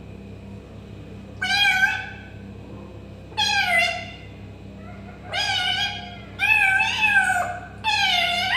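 Parrot mimicking a cat's meow: about five meow-like calls in a row, each about half a second to a second long and bending down in pitch at the end, the later ones louder and longer.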